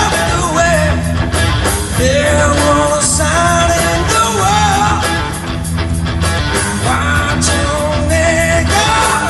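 Live rock band playing an instrumental passage: electric lead guitar holding sustained, bending notes over bass and drums.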